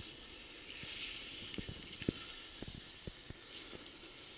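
Small campfire of twigs and half-damp wood burning with a steady hiss and scattered soft pops.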